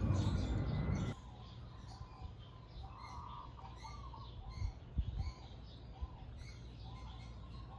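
Vespa GTS exhaust pipe being pulled off the engine, a loud scraping creak of metal that cuts off about a second in. After that, birds chirp, with a few soft thumps midway.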